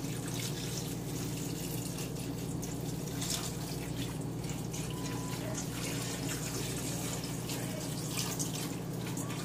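Water pouring in a thin steady stream from a saucepan into a roasting dish of lamb leg and vegetables, over a steady low hum.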